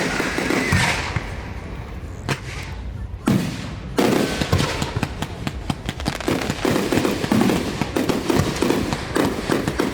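Aerial fireworks going off: separate loud bangs at first, then from about four seconds in a dense run of rapid crackling pops and bangs.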